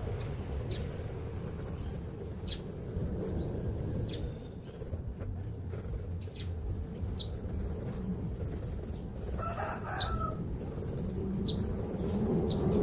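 A rooster crowing once, about ten seconds in, over a steady low background rumble, with short high chirps every second or so.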